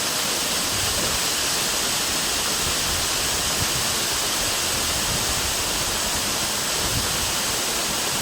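Waterfall: a steady, hissing rush of falling water.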